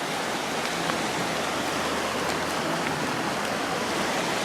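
Fast-flowing, muddy floodwater rushing down a normally dry ravine: a steady, continuous roar of water.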